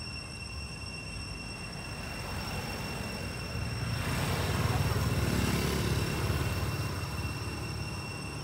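A car driving past on the road: tyre and engine noise swell up over a couple of seconds, peak about halfway through, then fade away.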